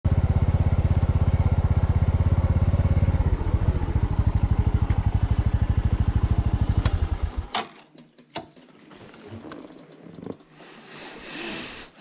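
Bajaj Boxer motorcycle's single-cylinder four-stroke engine running steadily with fast, even firing pulses, then cutting off about seven and a half seconds in. A few faint clicks follow.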